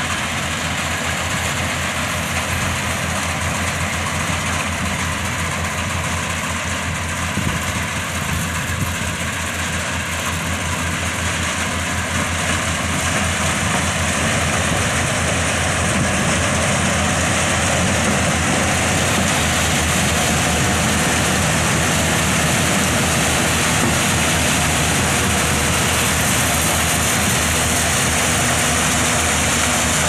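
Corn combine harvester running steadily as it harvests, its engine and harvesting machinery growing louder about halfway through as it comes closer.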